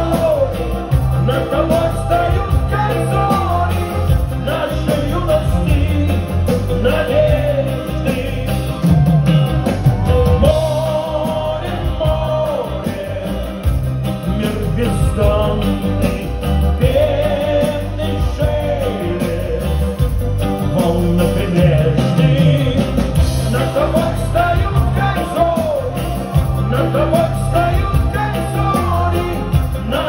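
A live pop-rock band playing through a PA, with drums and bass underneath and a melody line on top, recorded from within the audience.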